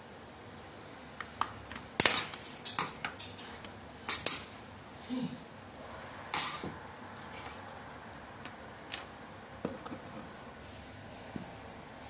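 Sharp plastic clicks, snaps and knocks as a steering-wheel clock spring's housing is pried apart and handled on a workbench. There is a loud cluster about two seconds in and another about four seconds in, then sparser, smaller clicks.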